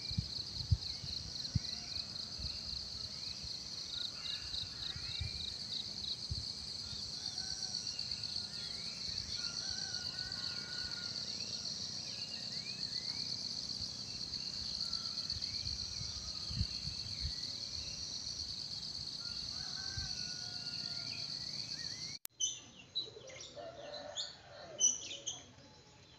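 Countryside ambience: a steady, high, pulsing insect chorus with birds chirping and calling over it, and a few low thumps. About 22 seconds in it cuts to a quieter scene of scattered bird chirps.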